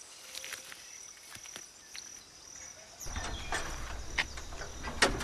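Insects trilling with a steady high-pitched tone and scattered ticks. About three seconds in, a louder rustling noise with a low rumble and sharper clicks comes in.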